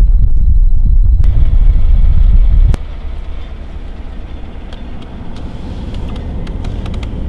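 Truck driving up a rough mountain road, a loud low rumble. About three seconds in it drops abruptly to a quieter, steady rumble with scattered small clicks and rattles.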